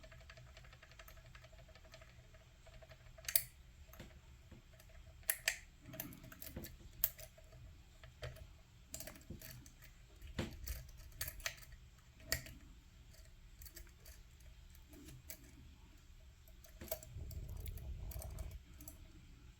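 Lock pick working the pins of an Assa 700 pin tumbler lock: irregular light metallic clicks, a few sharper ones, as pins are bounced, set and dropped while the tension is eased and reapplied. Dull handling noise comes in near the end.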